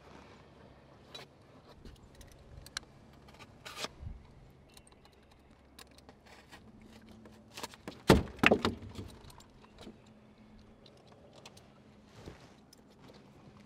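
Vycor Pro self-adhered flashing tape being unrolled and cut from its roll with a utility knife: scattered clicks and papery rustles, with the loudest burst of sharp crackling about eight seconds in.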